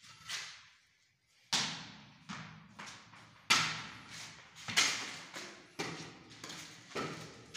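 Repeated sharp knocks, unevenly spaced about once a second, each trailing off in an echo: a child's plastic cricket bat and ball striking a bare concrete floor.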